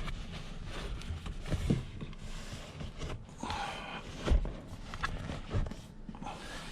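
Rustling and irregular knocks of a leather car rear seat cushion being handled and fitted into place, with two louder thumps, the louder about four seconds in.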